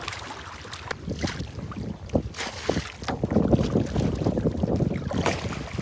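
Wind rumbling on the microphone over the splash of kayak paddle strokes in the water. The wind is heaviest in the second half.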